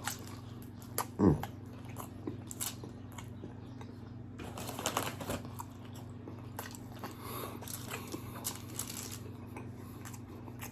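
Close-miked biting and chewing of birria tacos, with crunchy bites and wet mouth sounds in irregular runs over a faint steady background hum. A brief vocal sound about a second in is the loudest moment.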